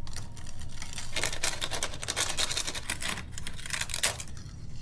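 Papery layers of a wasp nest crackling and rustling as they are cut and pulled apart, in irregular clusters with short pauses.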